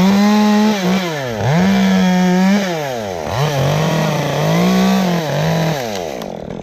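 Chainsaw at high revs cutting wood. Its pitch sags and recovers a few times as the chain loads in the cut, and the throttle drops off near the end.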